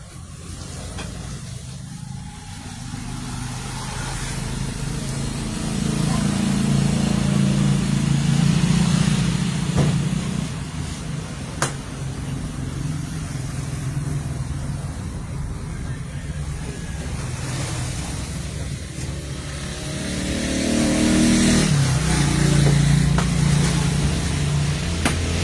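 A motor vehicle's engine running, growing louder twice: about six seconds in and again about twenty seconds in, as if vehicles are passing close by.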